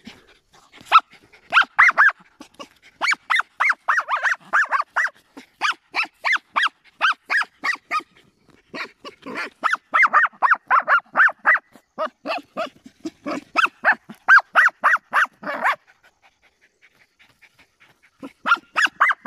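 Small dogs barking in rapid, excited yaps, about five a second, in long runs with two short breaks. They are baying at an armadillo they have cornered in its burrow while they dig at it.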